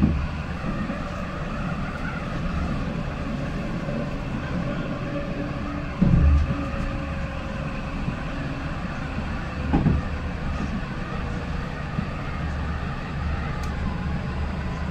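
Citadis 302 tram running along its track, heard from inside the driver's cab: a steady low rumble of wheels on rail, with two heavy thumps about six seconds in and near ten seconds.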